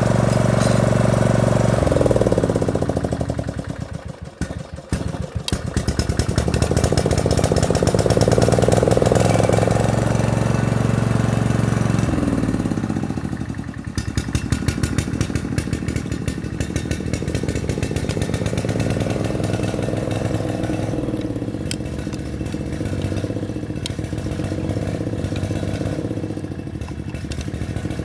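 Small lawn mower engine running during repair work: it runs fast, then slows almost to a stall about four seconds in, with single firing pops audible. It picks up speed again, then drops back about twelve seconds in to a lower, uneven run.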